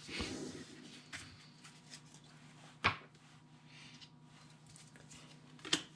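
Trading cards being handled and laid down on a wooden desk: soft rustling at the start, then two short sharp clicks, one about three seconds in and one near the end.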